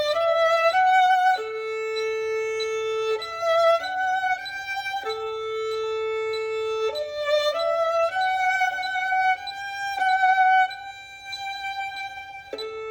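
Solo violin playing a melody in third position at a moderate tempo (quarter note = 96), with bowed notes and several long held notes.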